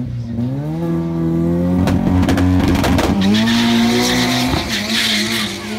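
Small pickup truck's engine revving up and held at high revs while the rear tyres spin and squeal in a burnout. The revs dip briefly about three seconds in and climb again, and the tyre squeal is loudest in the second half.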